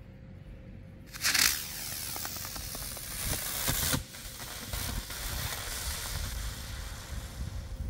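Vintage 'Plane Drops Parachute' aerial firework launching with a sudden loud whoosh about a second in, then hissing as it climbs until the sound drops off sharply about three seconds later as it bursts. A fainter steady hiss follows.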